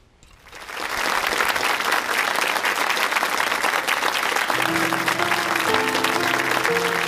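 Studio audience applauding, starting about half a second in. About four and a half seconds in, instrumental music with held notes comes in under the applause.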